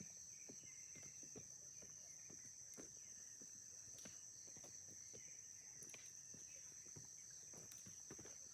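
Very faint outdoor ambience: a steady high-pitched insect drone, with soft, scattered taps of footsteps on a stony trail.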